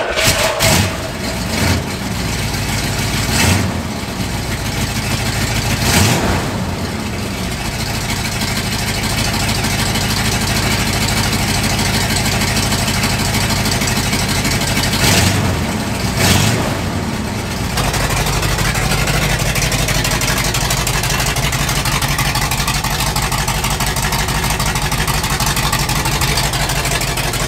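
Bullnose Ford pickup's engine starting and being revved about five times through a freshly tack-welded exhaust with a Thrush muffler, then settling into a steady idle at about 18 seconds. It is very loud, with exhaust leaks at the unwelded tacked joints adding to the noise.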